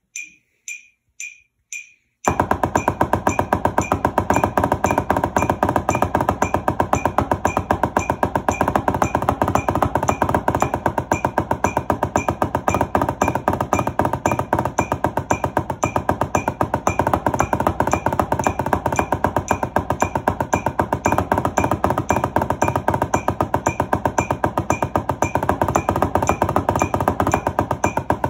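A metronome clicks about twice a second. About two seconds in, wooden drumsticks start playing fast, dense strokes on a drum practice pad, continuing over the clicks. This is the drag rudiment played at 115 beats per minute.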